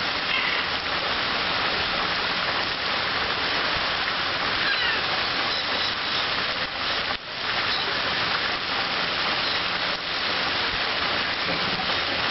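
Pond fountain jets spraying and splashing back into the water: a steady hiss of falling water, briefly dipping about seven seconds in.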